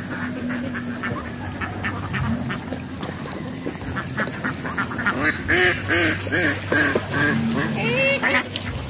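A flock of domestic ducks quacking: scattered short quacks at first, becoming a busy, louder chorus of overlapping quacks from about halfway through.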